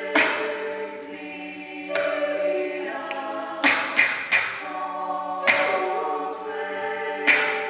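Mixed-voice a cappella choir singing sustained chords, with scattered sharp vocal-percussion hits.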